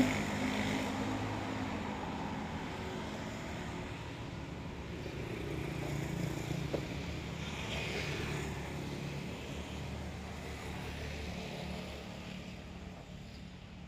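A motor vehicle's engine running with a steady low hum that slowly fades away.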